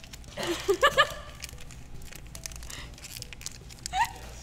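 Crinkling of foil booster-pack wrappers as packs are handled and torn open, with a short burst of laughter about a second in and a brief rising vocal sound near the end.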